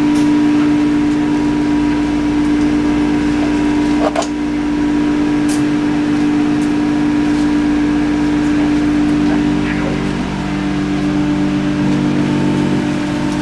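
Tunnel car wash machinery running, heard through the waiting-room window: a loud, steady motor hum with a clear tone from the brush and curtain drives, shifting slightly about ten seconds in, with a single sharp click about four seconds in.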